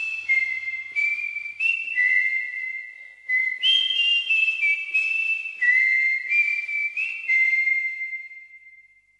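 A whistled melody in the background music: a slow tune of held notes stepping up and down, dipping briefly in the middle and fading out near the end.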